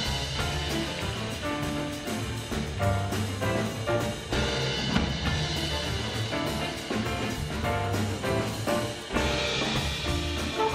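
Big band playing a swing jazz arrangement live: drum kit, upright bass, piano and guitar under the sax, trombone and trumpet sections, growing louder about nine seconds in.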